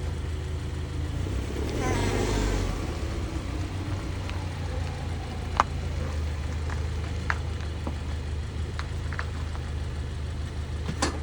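2020 Subaru Outback running, with a steady low engine hum that swells briefly about two seconds in and then settles. The owner attributes a whining noise in it to the CVT. A few sharp clicks are heard, one louder about five and a half seconds in.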